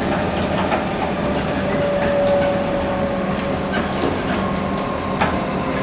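Inside a Comeng electric multiple unit carriage running along the line: a steady rumble of wheels on rail with scattered clicks and knocks. A thin, steady whine rises over it around the middle.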